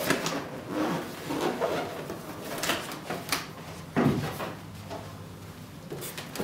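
Cardboard box being opened by hand, the lid sliding and scraping against the box, with irregular rubbing and knocks and a heavier thump about four seconds in.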